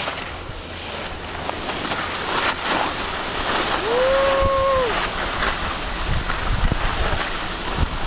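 Wind rushing over the microphone and skis hissing and scraping over snow while skiing downhill. About halfway through, a short tone rises, holds for about a second and falls away.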